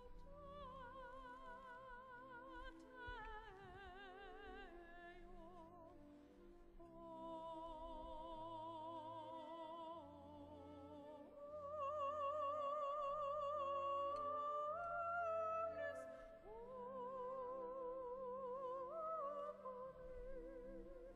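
Liturgical music: a solo singer with strong vibrato holds long notes over sustained low chords, the voice loudest in the middle stretch.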